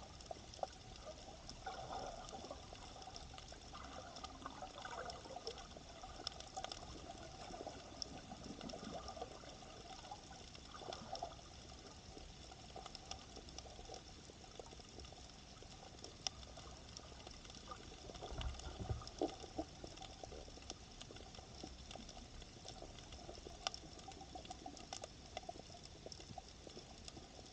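Underwater ambience on a shallow coral reef, picked up by a submerged camera: a faint steady water hiss with scattered sharp clicks and crackles, some rustling water movement in the first ten seconds, and a low thud a little past the middle.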